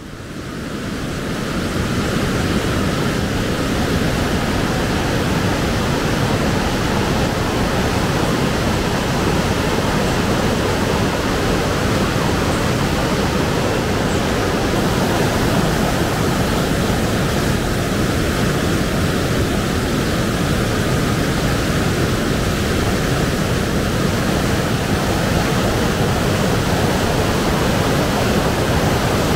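The River Tees running high and fast over rapids: a steady rush of churning water. It fades in over the first couple of seconds, then holds level.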